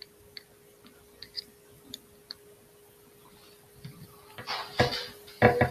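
A few light clicks and taps at a computer desk, then two louder short, noisy bursts near the end, over a steady faint hum.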